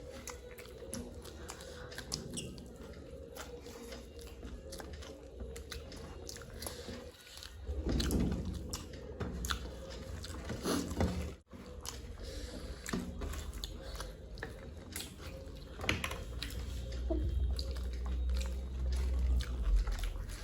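Close-up chewing and crunching of food, with many small crisp crunches. A low rumble comes in around eight seconds in and again near the end.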